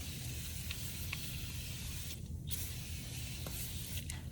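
Aerosol can of oven cleaner spraying onto the glass door of a fireplace insert, a steady hiss in two long bursts with a short break near the middle, putting on a second coat over thick creosote tar.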